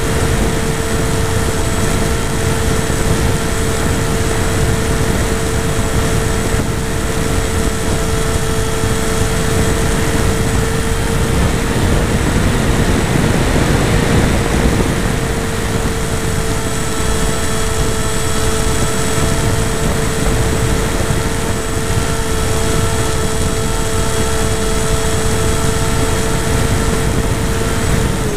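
The motor and propeller of an FPV model airplane in flight, heard from its onboard camera: a steady hum at one pitch. It sits under a rush of wind noise that swells briefly around the middle.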